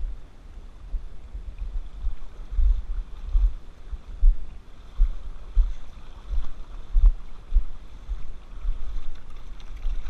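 Wind buffeting an action-camera microphone in irregular low rumbling gusts, over the faint rush of a flowing river.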